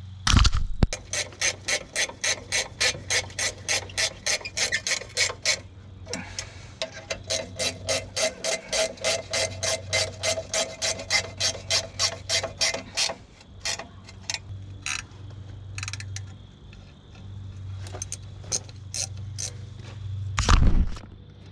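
A ratchet clicking in two long runs of quick, even clicks, about six a second, then a few scattered clicks. A thump at the start and a loud thump near the end, over a steady low hum.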